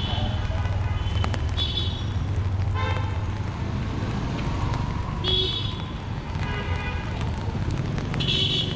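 City street traffic in the rain: a steady low rumble of engines, with short vehicle horn toots sounding again and again, several in a few seconds, over a hiss of rain.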